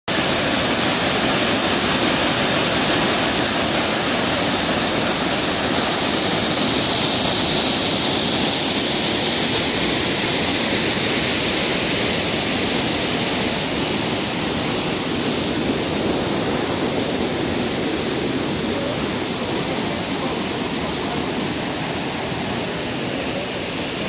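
Waterfall pouring into a narrow rock canyon: a loud, steady rushing of water that fades gradually through the second half.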